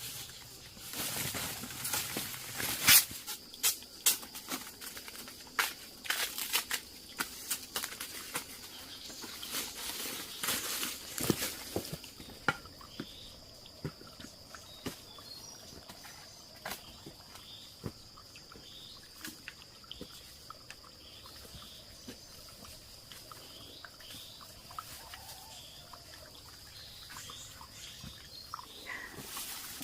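Outdoor ambience. Scattered sharp clicks and knocks fill the first dozen seconds. After that a steady high insect drone carries on, with short bird-like chirps repeating about once a second.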